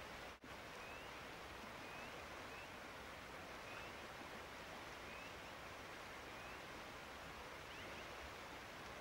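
Faint steady hiss, with short high rising chirps every second or so and a brief dropout just after the start.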